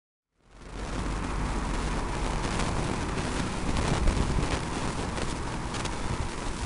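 Wind buffeting the camera microphone in gusts over street traffic noise, setting in abruptly about half a second in.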